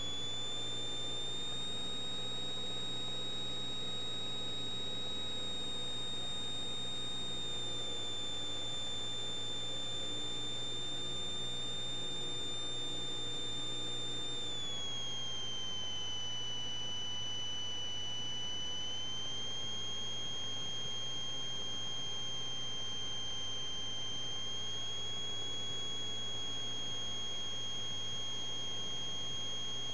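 Steady high electrical whine in the Cessna 172's intercom audio, typical of alternator whine. Its pitch follows engine speed: it slides down about 14 to 16 seconds in as power comes back for the landing, then steps up slightly a few seconds later and holds.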